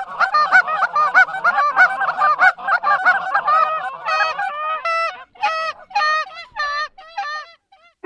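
Flock of Canada geese honking, many calls overlapping at first, then thinning to single honks about two a second that stop near the end.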